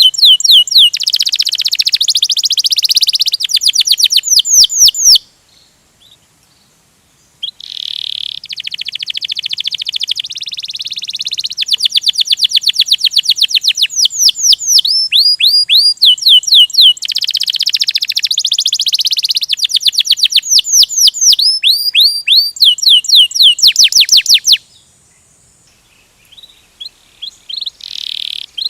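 Domestic canary singing a long rolling song: fast high trills and runs of quick down-slurred notes, broken by two pauses of about two seconds.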